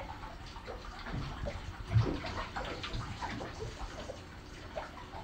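Hands scrubbing shampoo into a wet dog's coat in a bathtub: squelching lather and small splashes in the shallow tub water, with a low bump about two seconds in.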